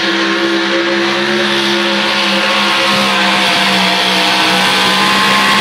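Pulling truck's engine running flat out under load at steady high revs, its pitch creeping up slightly near the end, as the truck struggles for grip on a track that is not holding.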